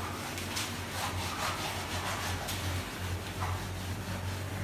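A hand-held eraser is rubbed back and forth across a whiteboard, wiping off marker writing: a run of quick, dry rubbing strokes.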